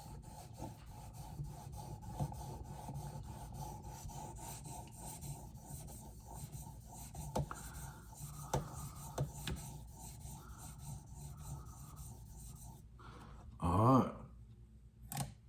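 Knife edge being honed on a guided TSProf Cadet sharpener's diamond plate, around 1000 grit: rapid, even rubbing strokes of the plate across the blade that stop about thirteen seconds in, the polishing stage of the sharpening. A brief voice-like sound and a click follow near the end.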